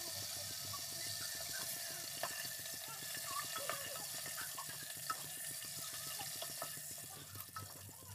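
Whole spices and bay leaves sizzling in hot mustard oil in a pressure cooker: a steady hiss with small scattered pops and crackles.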